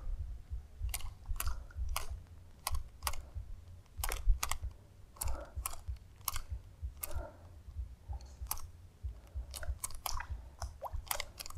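Crisp, irregular clicks and ticks, two or three a second, from the baitcasting reel and rod as a zara-style topwater lure is worked across the surface, over a low rumble.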